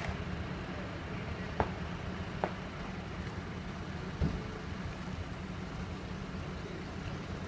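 A steady low engine rumble, with a few brief sharp sounds over it, the loudest about a second and a half in.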